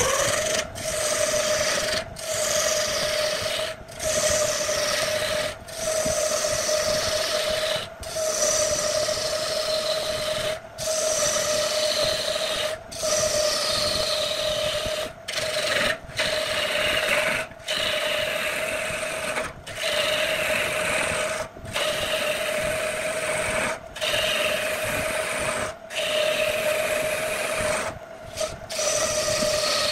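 Wood lathe running with a steady motor hum while a hand-held turning chisel scrapes and cuts into the spinning log blank. The hiss of the cut slides down in pitch within each pass. The sound breaks off briefly about every two seconds.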